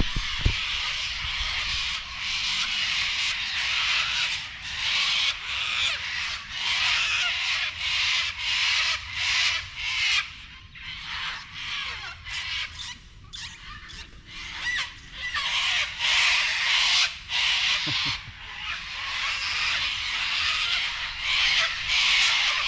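Cockatoos screeching loudly from the trees, many harsh calls overlapping, with a thinner spell about halfway through before they pick up again.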